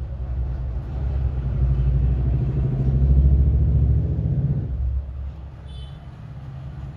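A low, engine-like rumble that swells to its loudest about three seconds in, then drops off abruptly just before five seconds.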